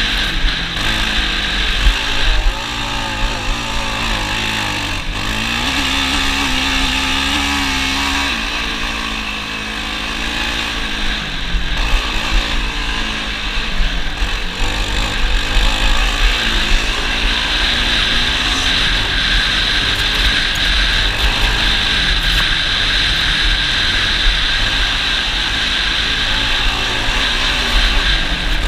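ATV engine running under way, its pitch rising and falling with the throttle, over a steady rushing noise and low rumble.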